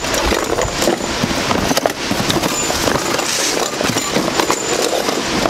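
Small cardboard parts boxes being lifted and shuffled inside a large cardboard shipping box: cardboard scraping and rustling with many small knocks as the boxes bump against each other and the box walls.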